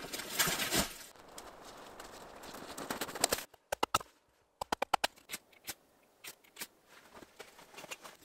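Boots crunching through snow for about the first second. From about halfway through comes a run of sharp, separate wooden knocks as a hatchet splits small pieces of wood into kindling.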